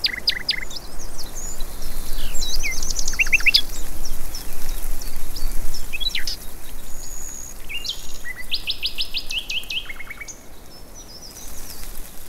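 Small birds chirping and calling in quick runs of high notes and short trills, over steady background noise.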